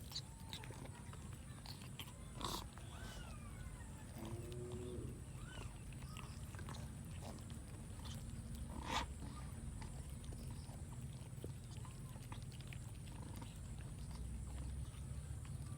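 Cats eating rice: scattered sharp clicks and chewing sounds over a steady low hum, with a couple of short pitched calls in the first five seconds.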